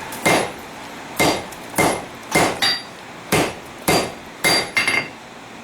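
Hand hammer striking a hot stainless steel canister on an anvil, about nine blows at roughly half-second to one-second intervals, each with a short metallic ring. This is a forge-welding attempt on an argon-filled canister of stainless steel.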